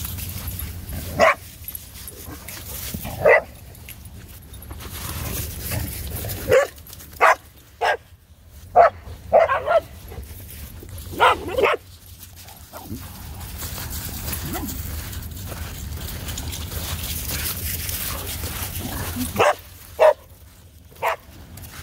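Dog barking in short single barks at irregular intervals, about ten in all, with a low rumble between them.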